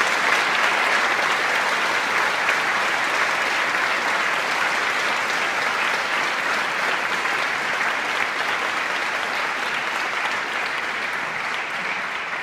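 Congregation applauding, a steady dense clapping that starts at full strength and slowly tapers off near the end.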